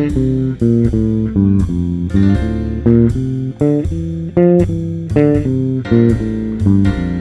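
Electric bass playing a single-note line at 80 BPM with a bouncing rhythm, built only from the notes of the major scale (do-re-mi-fa-so-la-ti-do). Each note is plucked separately, and some are held longer than others.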